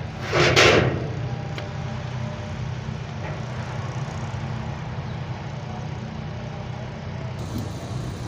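A motor running steadily with a low hum, with a short, loud burst of hiss about half a second in.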